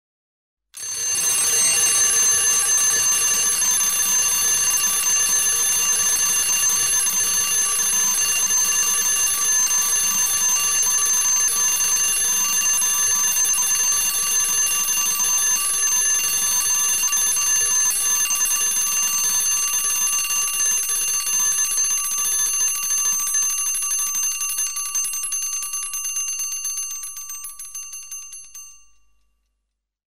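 Alarm clock bell ringing continuously with a rapid metallic clatter of strikes. It starts just under a second in, then fades out over the last few seconds.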